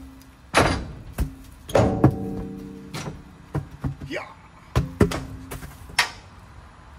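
Wheels and tyres tossed off a steel car trailer, landing and bouncing in a series of about ten thuds and knocks, several of the hits ringing briefly.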